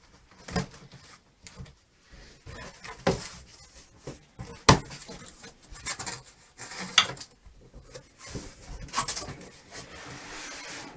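Cardboard box and packing being handled and opened: scattered knocks and bumps among scraping, rustling cardboard, with the sharpest knocks about three, five and seven seconds in.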